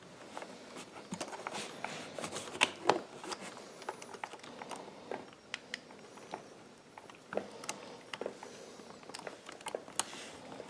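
Scattered small plastic clicks and light rustling as two-wire plastic wiring connectors and their leads are handled and pushed together.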